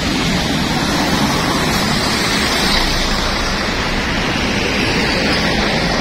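Mercedes-Benz intercity coach pulling away and passing close by: a loud, steady rush of engine and tyre noise.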